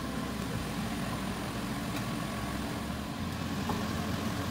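Steady low rumble with an even hiss, from a kitchen appliance running near the stove.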